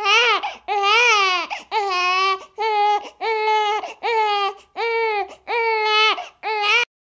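A newborn baby crying: about nine wails in quick succession, each rising and then falling in pitch. The crying cuts off abruptly near the end.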